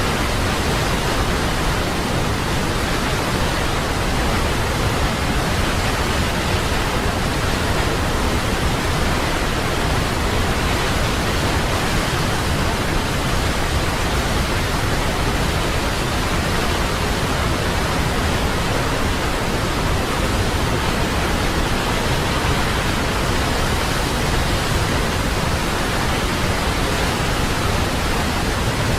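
Waterfall: a steady, even rush of falling water that does not change in level.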